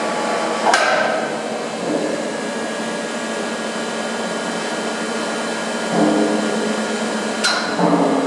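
Steady hum of a machine hall, broken by sharp metallic knocks like hammer blows: one about a second in and another near the end, with a few duller clanks between.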